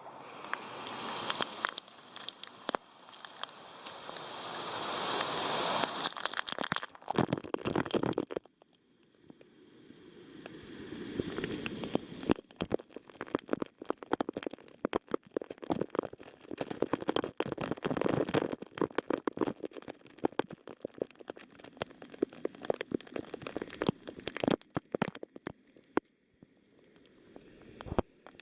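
Hot-spring water splashing and trickling down a small falls, with many sharp drips and splatters. The rush swells and falls away several times, dropping off suddenly once about eight seconds in.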